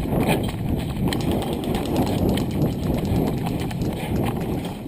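Footsteps of a person running over rough ground, quick and regular, over a steady low rushing noise.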